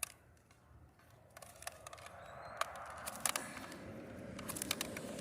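Clicks and scraping of a hand cutting tool working at a thick electric cord to cut it off, with handling rustle building from about two seconds in. The cord is too thick to cut through easily.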